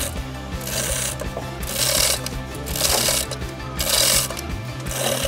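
Background music with a bass line stepping between notes and a hissing percussive beat about once a second.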